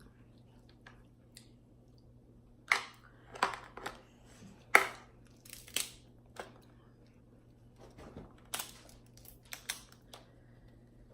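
Irregular sharp cracks and crinkles, about a dozen scattered over several seconds, from things being handled or crushed close to the microphone, over a faint steady low hum.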